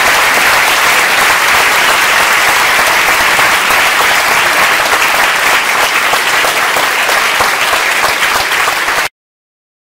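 Audience applauding, loud and steady, cutting off suddenly near the end.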